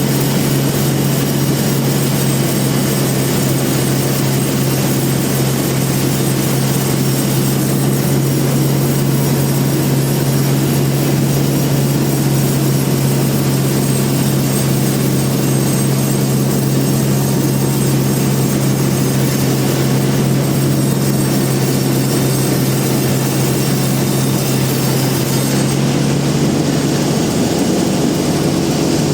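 Large band sawmill machinery running: a loud, steady low hum under a constant noise, with the hum shifting slightly near the end.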